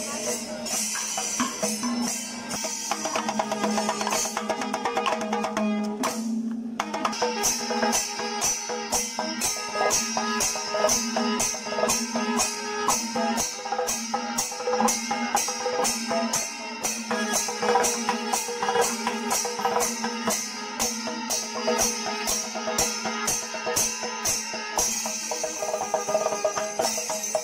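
Kerala temple percussion ensemble playing continuously: drums with metal cymbals clashing about twice a second, over a steady held tone.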